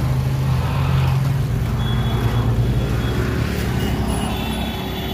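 A motor vehicle's engine running close by with a steady low hum that fades after about a second and a half, over continuous street-market noise.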